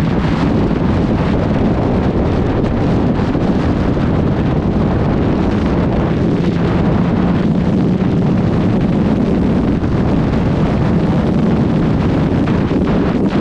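Steady wind roar on the microphone of a first-generation Suzuki GSX1300R Hayabusa at motorway speed, with the motorcycle's engine drone underneath.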